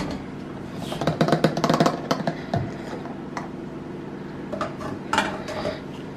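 Plastic funnel and plastic squeeze bottle being handled: a quick cluster of light clicks and knocks about a second in, then a few single knocks as the funnel is set down in a metal pan and the bottle is picked up. A steady low hum runs underneath.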